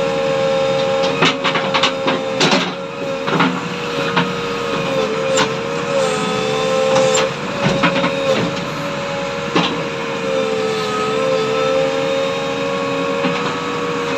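JCB 3DX backhoe loader working under hydraulic load: a steady whine that dips in pitch now and then, with sharp clanks and knocks from the bucket and linkage scattered throughout.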